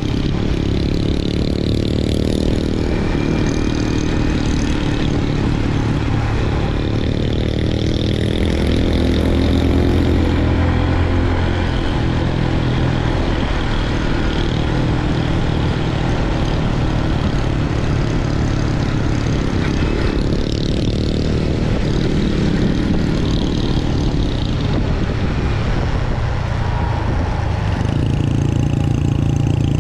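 Motorcycle engine running under way, heard from on the bike, its pitch shifting up and down several times with the throttle.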